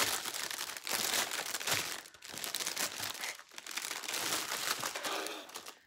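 Clear plastic packaging being crinkled and pulled open by hand, a continuous rustling with short lulls about two and three and a half seconds in, fading out near the end.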